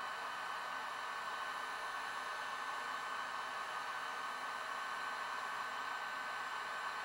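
Heat gun blowing steadily, a rush of air with a thin steady whine, heating a CRT's safety glass to soften the decaying PVA bonding layer beneath it.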